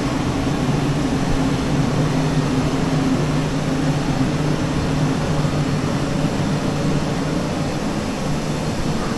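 Steady low mechanical hum with a constant low drone, like a machine or engine running.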